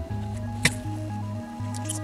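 Instrumental background music with a steady bass line and a simple melody. About two-thirds of a second in there is a short sharp click, the loudest moment, and a fainter one near the end.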